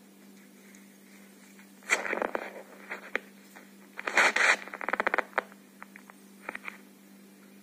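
Scratchy rustling in two short bursts, about two and four seconds in, with scattered sharp clicks between and after them, over a faint steady hum.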